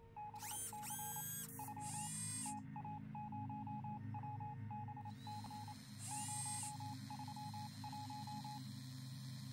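Electronic targeting-display sound effects: rapid strings of short computer bleeps, with three or four rising electronic chirps, over a low pulsing hum.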